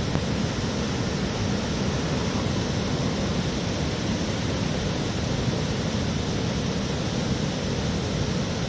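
Steady outdoor background noise: an even hiss with a low rumble underneath, holding level with no distinct events.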